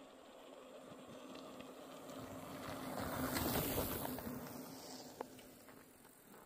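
A loaded bicycle ridden past close by on a dirt road: tyre and drivetrain noise that swells to a peak about three and a half seconds in, then fades as it goes by.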